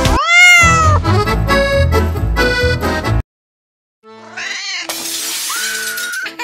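A single loud cat meow, rising then falling in pitch, over background music. After a short break, a woman screams high and drawn-out near the end.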